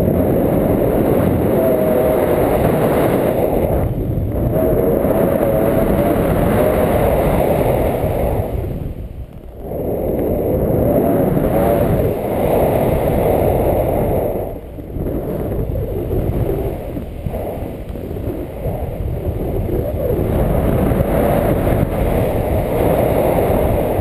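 Wind rushing and buffeting over an action camera's microphone in paraglider flight, a loud rumbling roar that drops away briefly twice, about nine and fifteen seconds in.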